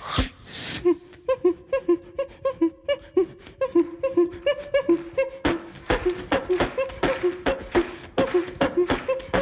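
Human beatboxing into a handheld microphone, several sounds layered at once: a bouncing two-note tune over quick clicks and drum sounds. About five and a half seconds in, harder kick and snare hits come in and the beat gets denser.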